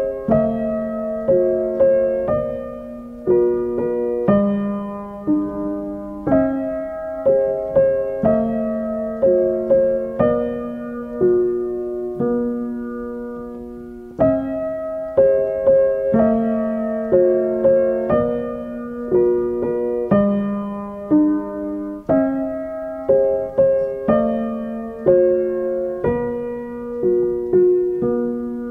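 Background piano music: a slow, gentle melody of struck notes, each fading away.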